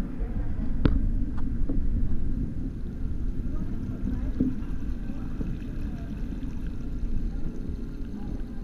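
Low, muffled rumble of tank water heard from inside a GoPro's sealed underwater housing, with a sharp knock about a second in and a fainter one just after as lobsters' shells bump the housing.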